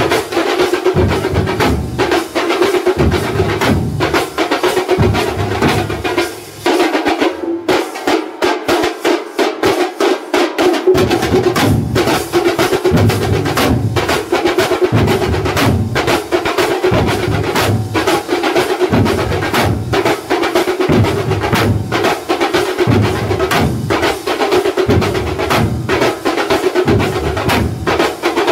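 A Kerala thambolam percussion troupe plays many large double-headed drums beaten with sticks, along with metal cymbals, in a fast, driving rhythm. A third of the way in, the deep drum beats drop out for a few seconds, leaving only the sharper strokes, then they come back in.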